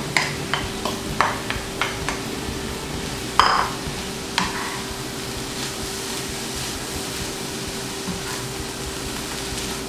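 Vegetables stir-frying and sizzling in a hot pan, with a utensil clicking and knocking against the pan several times in the first few seconds and one louder clatter about three and a half seconds in. A steady faint hum runs underneath.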